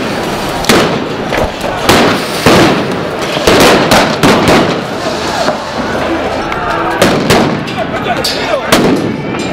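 Street riot clash: people shouting over a string of loud, sharp bangs and cracks that come irregularly, about ten of them.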